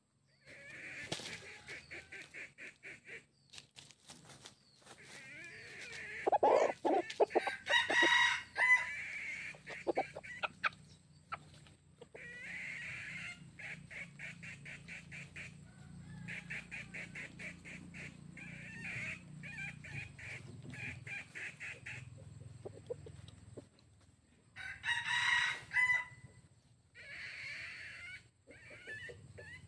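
Red junglefowl roosters clucking in quick, rattling runs, with two louder crows: one about eight seconds in and one near twenty-five seconds.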